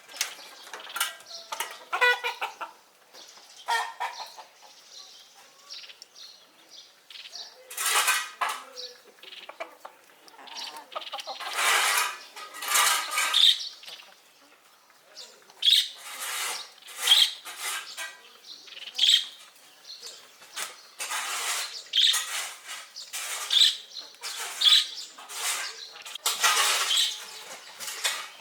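Chickens moving about, with irregular bursts of wing-flapping and rustling and short high chirps in the second half.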